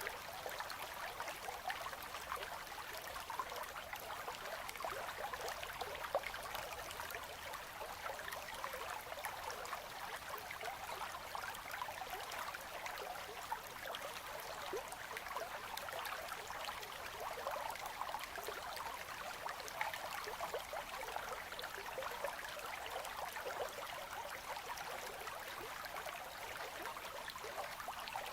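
Winter river current flowing among ice: a steady, light babbling of water with many small splashes and no deep rumble.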